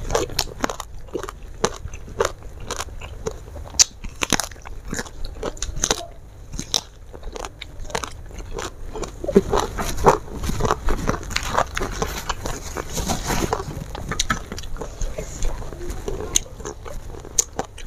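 Close-miked chewing of raw round green eggplant, with many crisp, irregular crunches as the firm flesh is bitten and chewed.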